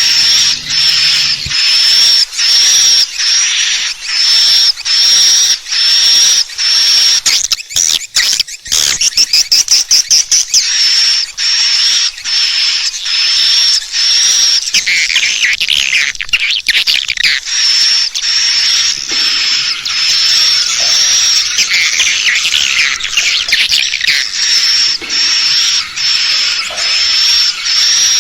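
Swiftlet call recording: high, evenly repeated chirps, about two a second, with a quick burst of clicking about eight seconds in and a busier, lower twittering through the middle. It is a lure call played to draw edible-nest swiftlets to roost and nest in a swiftlet house.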